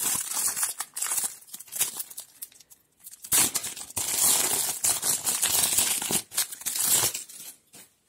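The foil wrapper of a Transformers trading card booster pack being torn open and crinkled by hand, in two long rustling stretches with a short pause about three seconds in. Near the end there is quieter handling as the cards come out.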